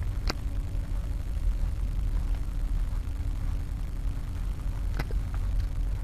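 Wind buffeting an action camera's microphone as a fluctuating low rumble, with a faint steady hum under it and two sharp clicks, one near the start and one about five seconds in.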